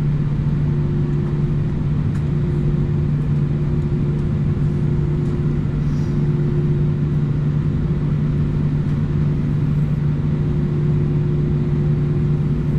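Steady cabin drone inside an Airbus A319 on the ground with its engines at idle: an unchanging low hum with a constant tone in it.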